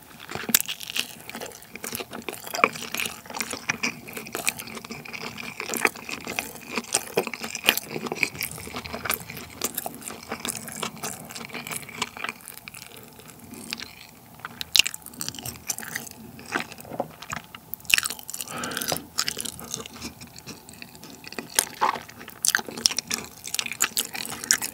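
Close-miked biting and chewing of a spicy dumpling, full of small crisp crackles and clicks at an uneven pace.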